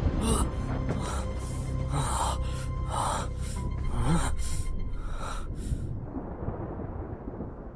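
Heavy, ragged breaths and gasps, about two a second, over a low sustained film-score drone. The breathing stops about six seconds in and the music thins out.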